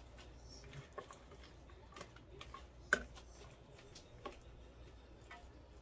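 Faint scattered taps and clicks as bok choy is handled and dropped from a plastic bowl into a stainless steel pot, roughly one a second, with one sharper tap about three seconds in.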